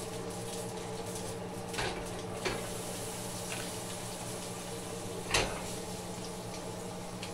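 A few short knocks of cookware and utensils, three in all, the loudest about five seconds in, over a steady low hum.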